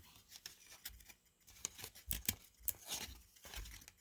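Hockey trading cards being handled and flipped through: scattered light clicks and rustles of card stock, with a few soft bumps.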